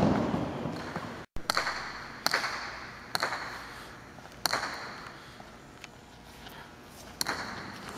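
A hard jai alai pelota cracking against the court's wall and floor about five times, spaced unevenly. Each crack is followed by a ringing echo from the large hall.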